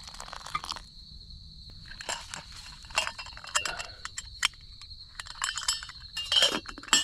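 Camp cookware being handled: a scattered run of light metallic clinks and knocks, busiest about halfway through and near the end. Behind it is a steady high-pitched insect drone.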